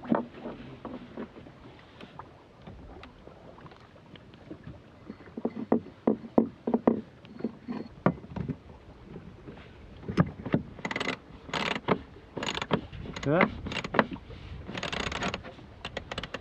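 Harken two-speed sailing winch being reassembled by hand: metal and plastic parts knock and click as the drum goes back onto its base. In the second half, louder runs of clicking come as the drum is turned and its pawls ratchet.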